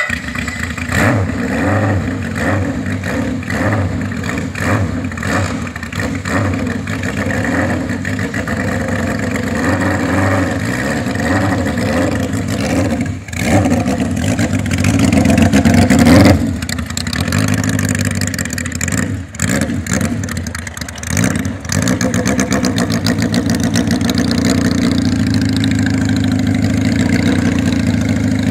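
Honda CB750 chopper's air-cooled inline-four engine running and revving, its sound rising and falling with the throttle and dropping away briefly a few times. It then settles into a steady idle for the last few seconds.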